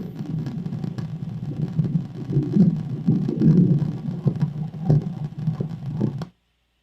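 Recorded airplane flying over, played back: a low, uneven rumble with a few clicks, cut off abruptly about six seconds in.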